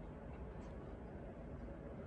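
Faint, steady low rumble of a distant ASEA Rc4 electric locomotive approaching along the track, with a brief faint high squeak about half a second in.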